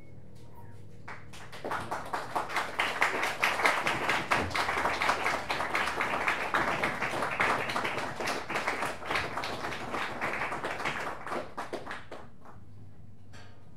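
Audience applauding at the end of a piece: dense clapping starts about a second and a half in, keeps going for about ten seconds, then thins out and stops near the end. The last ringing notes fade just before the clapping begins.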